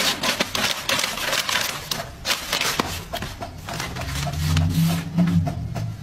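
Inkjet printer running, a dense rapid clatter of its print mechanism, with paper rustling as a cat paws at a freshly printed sheet. A low drone comes in for about a second near the end.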